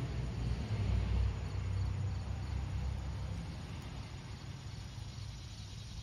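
A low rumble, strongest in the first second or so and fading away, with faint, high, evenly repeated chirps about three times a second through the first half.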